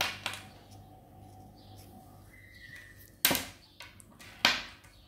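Handling noise from earphones, their cable and a plastic case: a few sharp clicks and knocks, two quick ones at the start and two louder ones about three and four and a half seconds in, each trailing off briefly.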